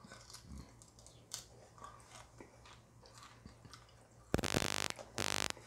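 Beef jerky being chewed with soft, faint crunching clicks, then a phone timer alarm sounds two loud tonal bursts about half a second each, a little over four seconds in.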